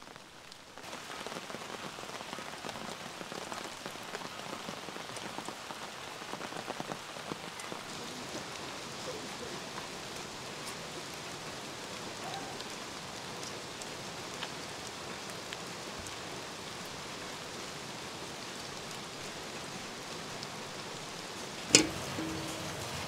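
Steady rain falling, with a single sharp clank of a metal pot lid shortly before the end.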